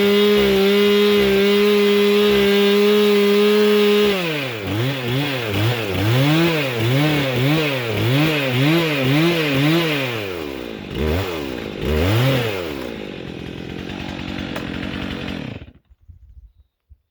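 Stihl MS 362 C two-stroke chainsaw held at full throttle for about four seconds, then revved up and down about once a second. After one last rev it drops to a lower, steadier run and cuts out about a second before the end.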